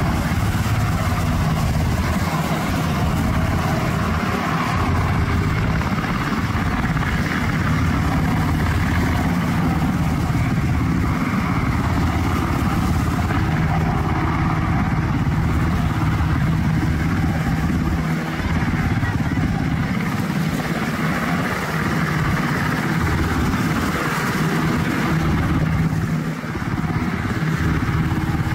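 Black Hawk-type military helicopter hovering low over the sea, its rotor and turbine running with a steady, even sound.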